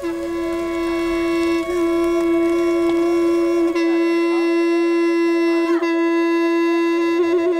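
An animal-horn trumpet blown and held on one steady note, broken briefly about every two seconds, with a quick fluttering of the note near the end.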